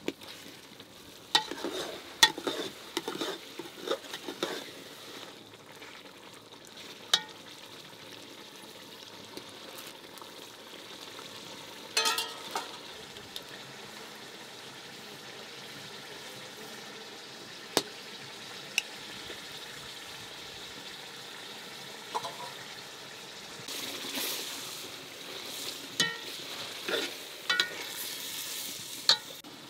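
Chicken stew sizzling in an aluminium pot over a wood fire, with a metal ladle stirring it and clinking sharply against the pot now and then, several clinks in the first few seconds and a cluster near the end.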